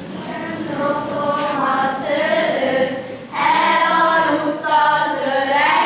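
A choir singing a song in long held notes, without audible instruments. It swells about a second in, breaks off briefly just past halfway, and comes back louder.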